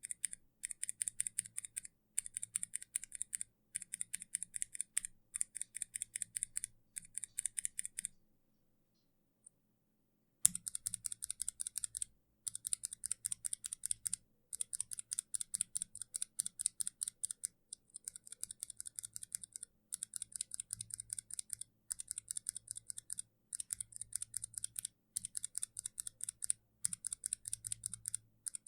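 Kailh mechanical keyboard switches on a switch tester pressed rapidly, in short bursts of quick clicks about a second long with brief gaps between them. Pressing stops for about two seconds about eight seconds in, then resumes.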